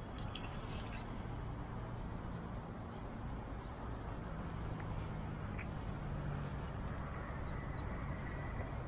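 Steady low rumbling background noise, a drone that grows slightly louder about halfway through, with a few faint ticks.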